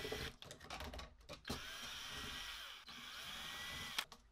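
Cordless drill backing screws out of a sheet-metal electrical panel. The motor whines in a few short bursts, then runs steadily for a couple of seconds, its pitch rising and falling with the trigger, and stops near the end.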